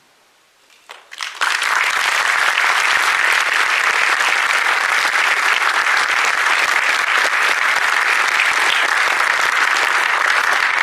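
Audience applauding: a moment of quiet, then about a second and a half in, dense, steady clapping breaks out and keeps going.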